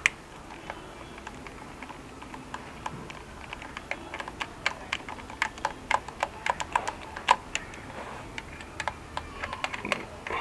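A hand tool turning out a bolt on a motorcycle's front sprocket cover: a sharp click at the start, then rapid, irregular clicking of metal on metal that is thickest in the middle.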